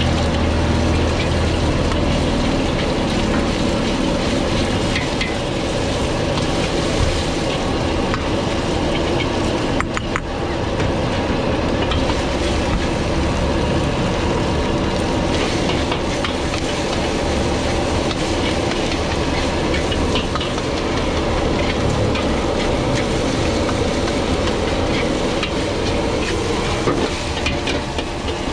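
Egg fried rice sizzling in a wok as a metal ladle stirs and scrapes it, the ladle clinking against the wok many times. Under it runs the steady rush of the gas burner.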